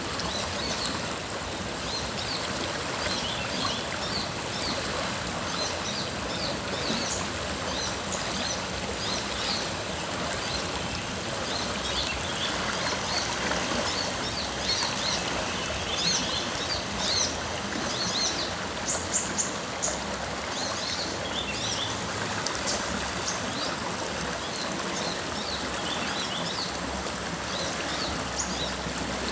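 Steady rush of a flowing river, with many short bird chirps scattered throughout.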